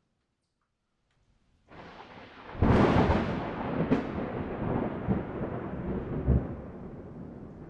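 A thunderclap from a recorded thunderstorm soundtrack. A low rumble builds a little under two seconds in, breaks into a loud crack, then rolls on with a couple more cracks while slowly fading.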